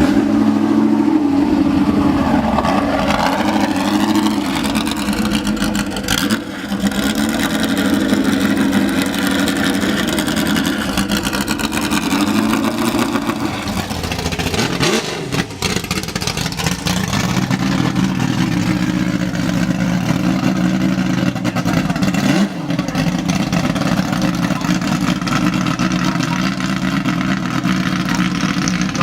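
A car engine running steadily, its pitch shifting slightly now and then, with brief dips a few times.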